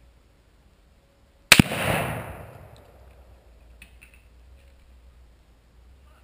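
A single .243 rifle shot heard from about 75 yards downrange: a sharp crack, then a rolling echo that dies away over about a second and a half.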